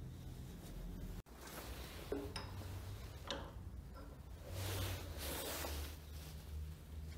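Handling noise of an old grease gun being set into the jaws of a bench vise: a few sharp metal clicks and clinks, then a stretch of rubbing and scraping as the vise handle is turned to clamp it.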